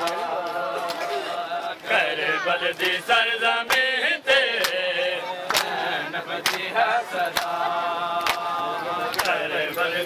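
A group of men chanting a noha (mourning lament) together, punctuated by sharp slaps of open hands striking bare chests in matam, about once a second.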